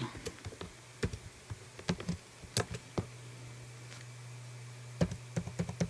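Computer keyboard typing: scattered keystrokes through the first three seconds, then a quick run of keys near the end, over a low steady hum.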